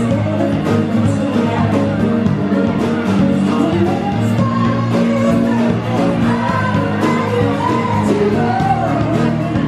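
Music: a pop song with a singing voice over a steady accompaniment.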